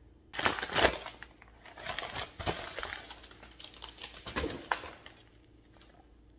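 Packaging being opened by hand: a paper mailer torn open and a plastic-wrapped package pulled out and handled, crinkling and rustling in sharp, irregular crackles that die down about five seconds in.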